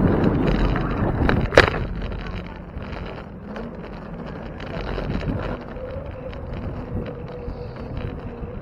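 Wind buffeting the microphone of a camera on a moving bicycle, loud at first and easing after about two seconds, with one sharp knock about one and a half seconds in.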